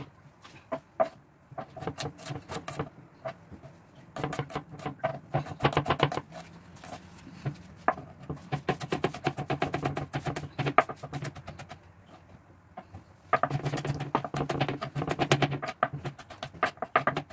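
Large kitchen knife rapidly chopping and mincing garlic on a plastic cutting board: fast runs of sharp knocks in several bursts, with short pauses between them.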